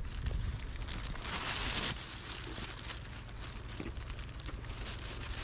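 Thin plastic garbage bag rustling and crinkling as it is handled and opened, loudest about a second in.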